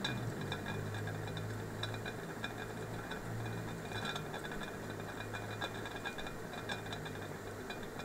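Metal camping pot of tomato stew simmering on a gas stove, its lid ticking and clinking lightly and irregularly, several small ticks a second. A low steady hum runs underneath.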